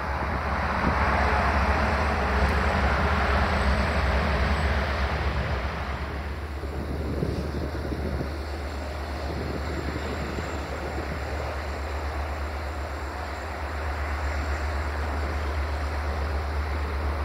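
A train at a station: a steady low engine drone under a loud rushing noise, which eases off after about six seconds.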